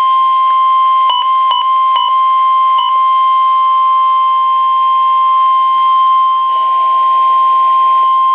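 NOAA Weather Radio warning alarm tone: a single loud, steady 1050 Hz beep, marking the start of a weather warning broadcast. It is briefly broken by four small clicks between about one and three seconds in.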